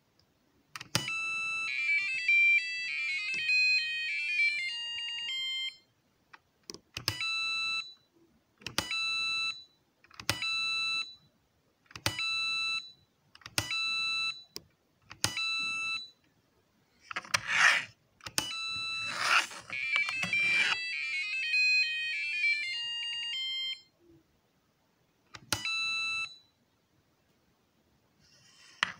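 Arduino-driven piezo buzzer of an electronic Japanese billiard game playing its electronic beep tunes. A longer tune plays near the start, then six short beeps follow about two seconds apart, then another tune plays about two-thirds through and a last beep comes near the end. Two short, loud bursts of noise come just before the second tune.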